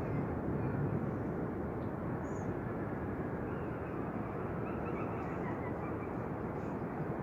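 Steady hiss of rain during a thunderstorm.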